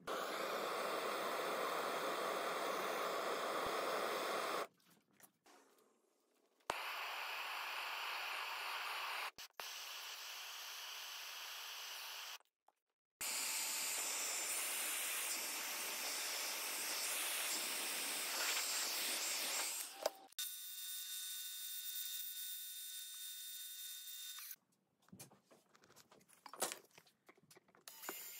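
Steady hissing blow of a heat gun shrinking tubing over soldered wire joints, in several stretches that each start and stop abruptly.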